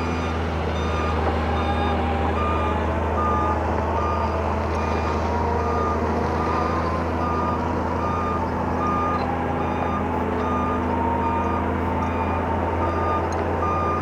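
Hyundai 170W-7 wheeled excavator's diesel engine running steadily while its travel alarm beeps at a regular pace.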